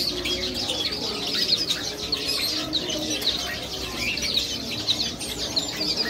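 A busy chatter of many short, high chirps from small caged finches, with wings fluttering in the cage.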